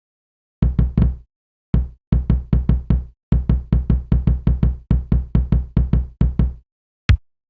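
Kick-drum sample triggered over and over in Fruity Loops: a quick, uneven run of short, deep hits, about four or five a second, each dying away fast, with brief pauses and one last lone hit near the end.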